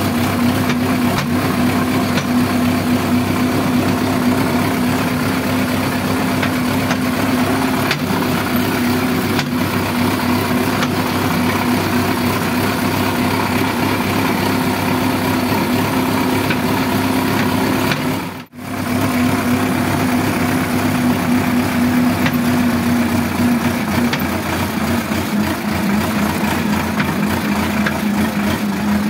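Sonalika DI 750 tractor's diesel engine running steadily while the tractor drives, heard from the driver's seat. The engine note eases slightly lower in the last few seconds, and the sound cuts out for a moment about eighteen seconds in.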